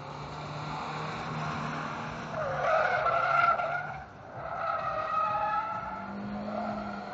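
Chevrolet Aveo's Continental tyres squealing as the car skids and drifts, in two long stretches over its engine. The first stretch, about two and a half seconds in, is the loudest, and the second follows after a brief drop about four seconds in.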